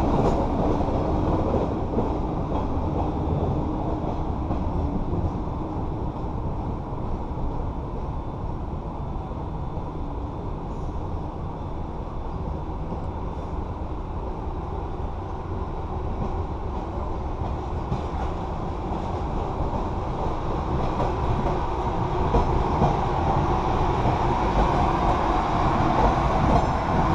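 MBTA Red Line rapid-transit train running on the rails: the rumble fades as one train pulls away, then builds again over the last several seconds as another Red Line train approaches and rolls in close by.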